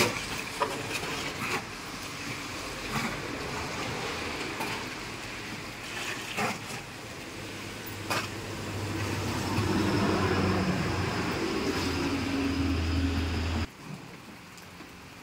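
Steady outdoor noise with scattered clicks; about eight seconds in, a low vehicle engine hum joins and cuts off suddenly near the end.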